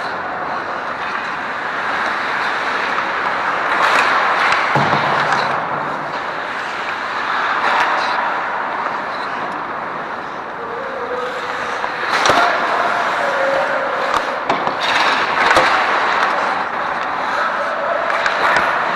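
Ice hockey game on a rink: skates scraping and carving the ice, with sharp knocks of sticks, puck and boards several times.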